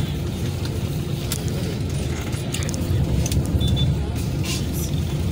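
Steady low rumble of idling and slow-moving motor vehicles in dense road traffic, with a few scattered clicks and a short high tone about three and a half seconds in.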